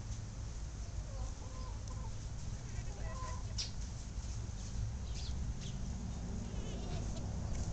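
Black-breasted red Old English Game bantam chickens clucking a few times, quietly, about a second in and again about three seconds in, over a steady low rumble.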